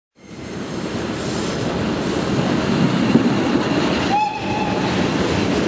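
Electric locomotive-hauled train passing close along a platform: a steady rumble of wheels and wagons that fades in over the first half-second. A brief high tone sounds a little after four seconds.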